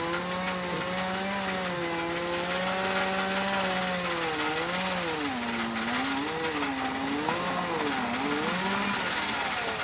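Gas two-stroke chainsaw running as it cuts into a large tree trunk. Its engine note dips and rises over and over as the chain loads in the cut.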